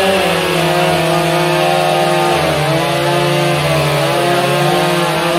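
A chainsaw engine running at a steady speed, its pitch dipping briefly about halfway through.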